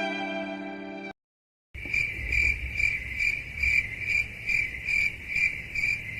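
Crickets chirping in an even rhythm, a high chirp about two and a half times a second, starting after a brief dead-silent gap. Before the gap, in the first second, the last notes of a slow violin tune fade out.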